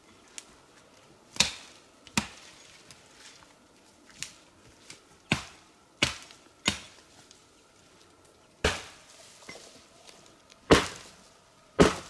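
Axe chopping wood: about nine sharp, separate blows at an uneven pace, a second or so apart, with the loudest strikes near the end.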